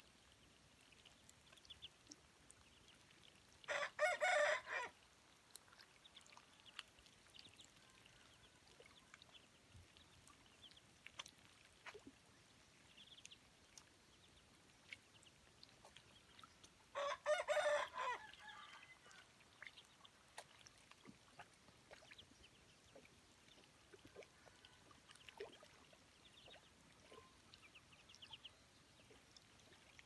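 A rooster crows twice, once a few seconds in and again about halfway through, each crow about a second long. Between the crows, ducklings peep faintly and dabble their bills in a muddy puddle with small splashes and clicks.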